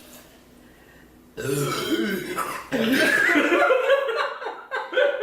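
A woman belching loudly after chugging soda: a long drawn-out burp starting about a second and a half in, breaking into shorter bursts near the end.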